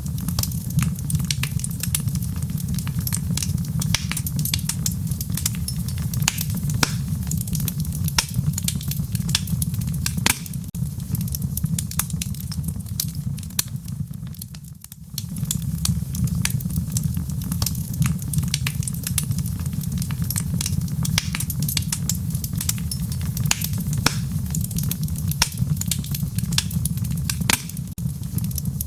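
Wood fire in a fireplace crackling, with frequent irregular sharp pops and snaps over a steady low rumble. The sound drops away briefly about halfway through.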